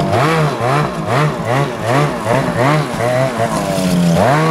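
2014 Ski-Doo MXZ XRS 800 E-TEC two-stroke snowmobile engine revved in quick repeated throttle blips, about two or three a second, then one longer rev near the end.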